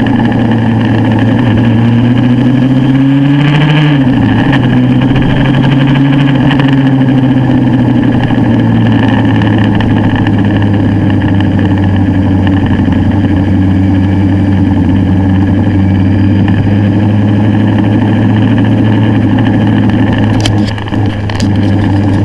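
Motorcycle engine running steadily under way, with road and wind noise. About two seconds in its pitch rises, then it drops off sharply near four seconds, and it settles back to an even note.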